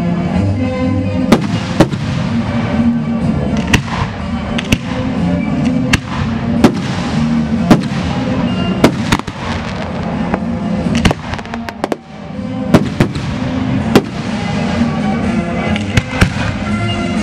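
Aerial fireworks shells bursting in a finale, a dozen or so sharp bangs roughly every second, some in quick clusters, over music playing throughout.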